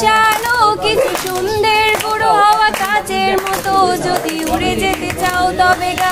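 A young woman singing solo without accompaniment, her voice bending through ornamented notes and then holding one long steady note near the end.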